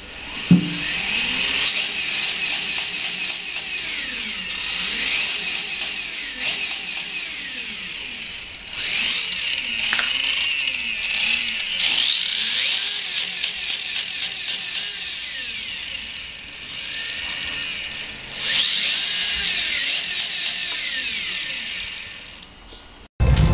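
RC drift car's electric motor and drivetrain whining with the wheels spinning free, the pitch gliding up and down over and over as the throttle is worked; the Sanwa Vortex D speed controller's rev limiter caps the revs. The whine eases off about two-thirds of the way through, comes back, and cuts off suddenly near the end.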